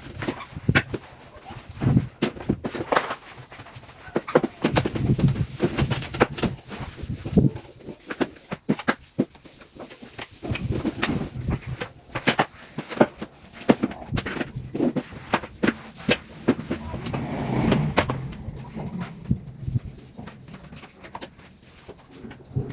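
Irregular knocks, clicks and clatter, like household objects being handled and set down during cleaning.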